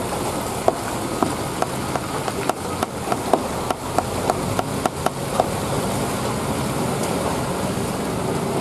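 Road traffic at a steep hairpin: a heavy tanker truck's engine running as it turns, with cars and motorcycles passing. About a second in, a quick run of about fifteen sharp clicks begins, two or three a second, and it stops after about four and a half seconds.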